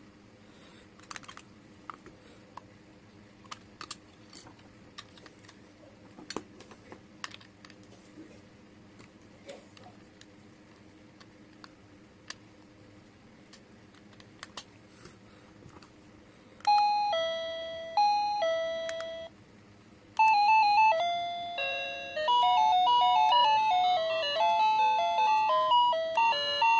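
Faint scattered clicks and taps of handling, then a wireless doorbell's electronic chime: a two-note ding-dong, high then low, sounds twice with each note dying away. After a short pause a longer electronic doorbell melody starts.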